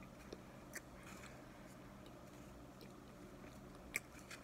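Faint chewing of cornstarch chunks, with a few soft clicks.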